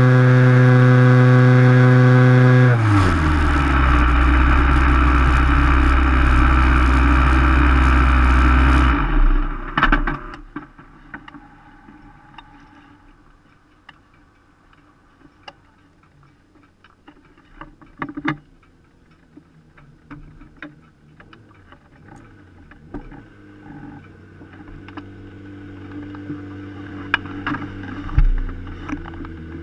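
Open-cockpit sports-prototype race car's engine running steadily at high revs, dropping in pitch about three seconds in as the car slows, then running lower until it cuts off abruptly about nine seconds in as the engine is switched off. After that come scattered quiet clicks and knocks from the stopped car, a faint low hum building near the end, and a thump as the driver climbs out.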